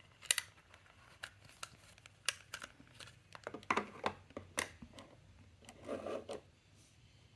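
Small metal fidget toys being handled and set down on a surface: scattered light clicks and taps, about a dozen, at irregular intervals.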